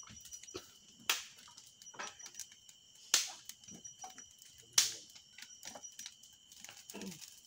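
Wood bonfire crackling with many small snaps and three sharp, loud pops about one, three and five seconds in.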